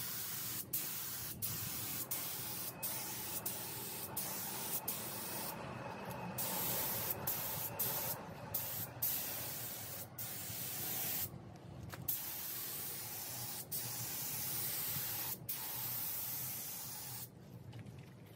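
Gravity-feed air spray gun spraying epoxy primer onto a steel fender: a steady hiss of atomising air in repeated passes, broken by many short pauses and a few longer ones as the trigger is released. It stops about a second before the end.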